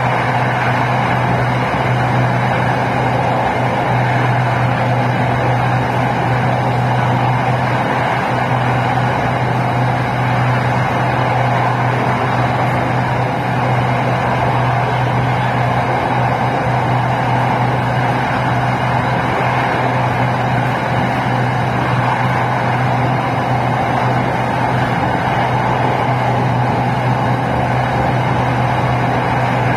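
SRT Red Line electric commuter train running between stations, heard from inside the passenger car: a steady rumble of the wheels on the rails with a constant low hum underneath.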